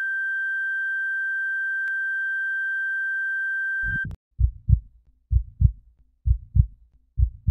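Heart-monitor flatline tone, one steady beep held for about four seconds, then cut off. A heartbeat sound effect follows: paired lub-dub thumps about once a second, four beats in all, the heart restarting.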